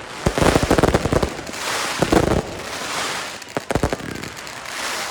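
Consumer firework batteries firing. A quick run of sharp launch and burst bangs comes in the first second, then a couple of seconds of dense crackling hiss from bursting effects, with a few more bangs later on.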